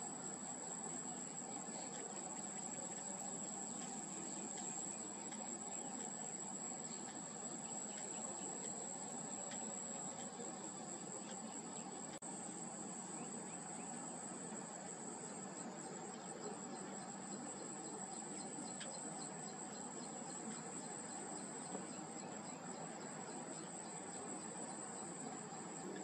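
Steady, high-pitched insect chorus, a continuous trill that holds unchanged throughout.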